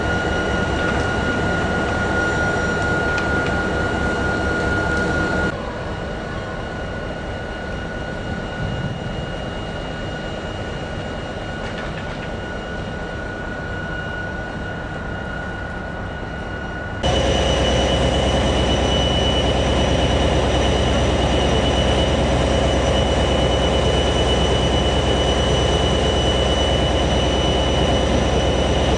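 A locomotive running steadily, with a constant whine over a broad rumble. The sound changes abruptly twice: it drops quieter about five seconds in, and comes back louder and fuller a little past the middle.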